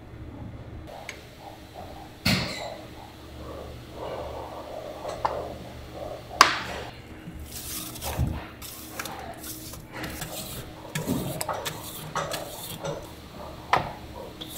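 Clattering of food-factory kitchen work: irregular knocks and clinks of metal trays and utensils over a steady low machine hum, with one sharp clack about six seconds in.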